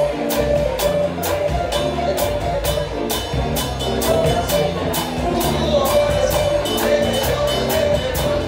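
Live Latin band music from a small combo of drum kit and electric bass with vocals, playing an upbeat dance tune over a steady, quick percussion beat.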